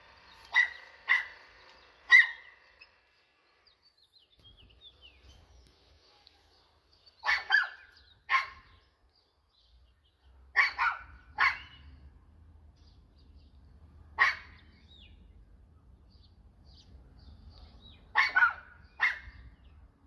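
A dog barking: short sharp barks, singly and in quick pairs or threes, about a dozen in all, with gaps of a few seconds between the groups.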